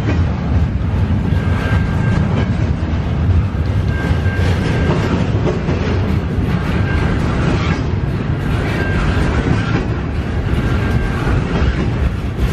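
Double-stack intermodal container cars rolling past, their steel wheels rumbling steadily and clacking on the rails.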